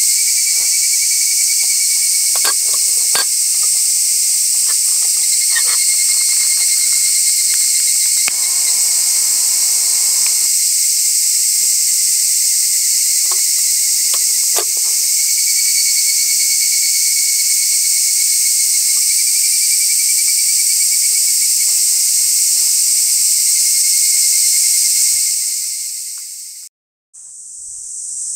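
Steady, shrill chorus of insects chirring in the evening, with a few faint clicks over it. The chorus fades out near the end and acoustic guitar music begins.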